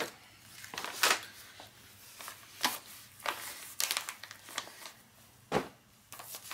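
Tissue-paper sewing pattern pieces rustling and crinkling as they are pulled from the envelope and unfolded, in a series of short rustles. A soft knock on the wooden floor comes about five and a half seconds in.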